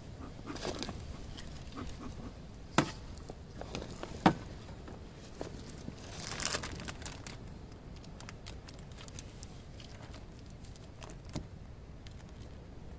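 Hands working at an open beehive while bee candy is laid in. Two sharp knocks come about three and four seconds in, then a short crinkling rustle around six and a half seconds, with small clicks and taps between.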